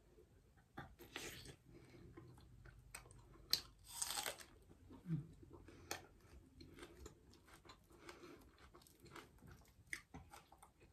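A person eating, with wet chewing and smacking sounds, small clicks and two louder crunchy bites, about a second in and around four seconds in.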